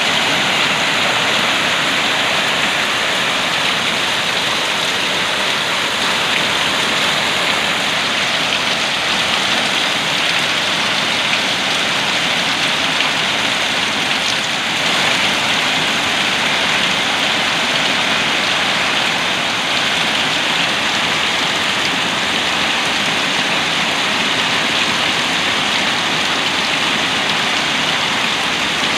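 Rain falling steadily, an even unbroken hiss of rain with no pauses.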